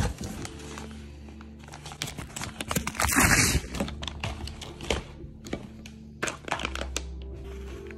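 Brown kraft-paper packing crinkling and rustling as it is handled in a cardboard box, with a louder burst of crumpling about three seconds in and scattered light knocks, over background music.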